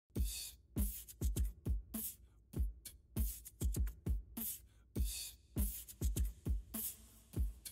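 Background music with a drum beat: deep kick-drum hits and sharp snare-like hits in a steady rhythm.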